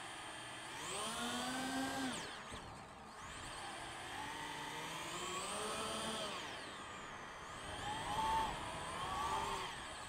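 Quadcopter FPV drone's motors and propellers whining, the pitch rising and falling with the throttle in three surges as it climbs and manoeuvres.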